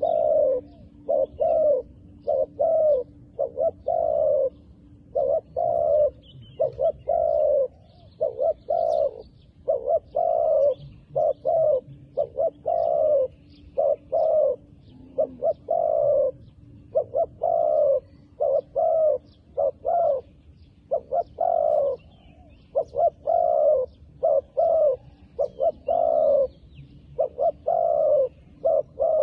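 Spotted dove cooing over and over: short coo notes followed by longer rolling coos, repeated almost without pause.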